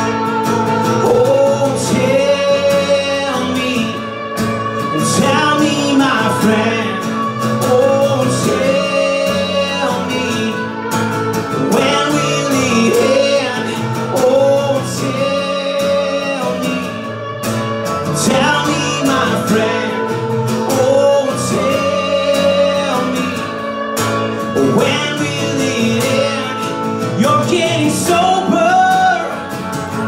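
Live band music: a strummed acoustic guitar with an electric guitar, and a melody line that bends up and down in pitch.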